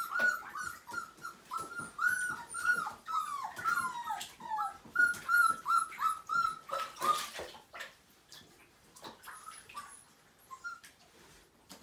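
Five-week-old Siberian husky puppies whining: a rapid run of short, high-pitched cries, many falling in pitch, that thins out to a few quieter ones after about eight seconds. The puppies are wet and getting cold after their first bath.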